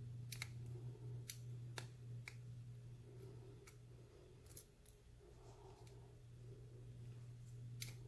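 Light, irregularly spaced metallic clicks, about seven, from a hook pick working the pin stacks of a 38 mm Ace solid-brass pin-tumbler padlock held under tension. A steady low hum runs underneath.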